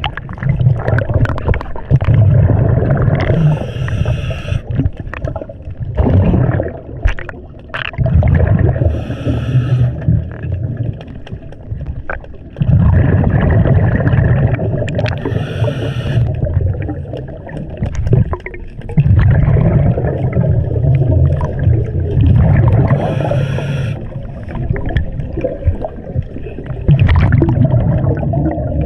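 Scuba diver breathing through a regulator underwater: a short hiss of inhaled air about every six to seven seconds, between longer stretches of low rumbling.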